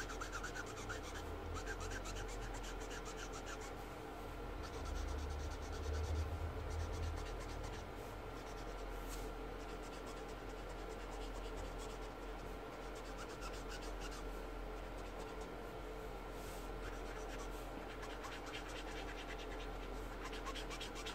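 Green felt brush-tip marker scratching over paper in quick, continuous colouring strokes as the leaves are filled in. A brief low rumble swells under it about five seconds in.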